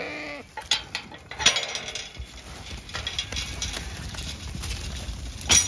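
A Zwartbles sheep bleats briefly at the start. Then a metal field gate gives a few sharp metallic clanks as it is opened, and the flock of rams jostles past at a run with a steady low rumble of movement.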